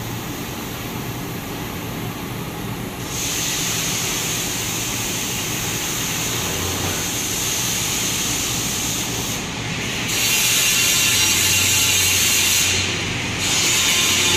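Two-colour servo-driven screen printing machine with UV curing lamps running, a steady mechanical hiss that gets louder about three seconds in and again about ten seconds in, dipping briefly twice.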